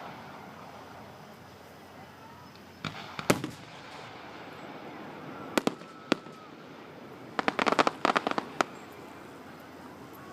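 Fireworks bursting: a few sharp bangs about three seconds in and two more around six seconds, then a rapid crackling string of pops from about seven and a half to eight and a half seconds in.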